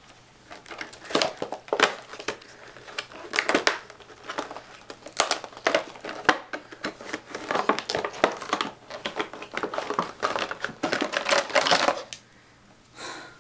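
Clear plastic packaging crinkling and crackling as it is handled and pulled about, in irregular crackles that stop near the end.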